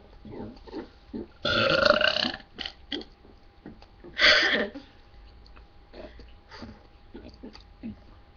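A person forcing out a drawn-out burp about a second long, then a second, shorter burp a couple of seconds later, each an attempt to make the burp last as long as possible.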